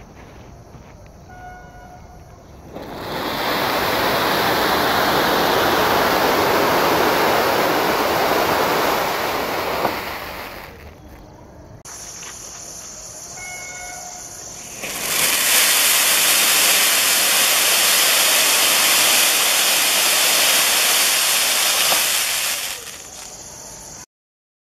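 Ananda Asrafi Peacock ground firework spraying sparks with a loud, steady hiss for about seven seconds, then dying down. After a lull the same hissing comes again for about eight seconds, fades, and cuts off shortly before the end.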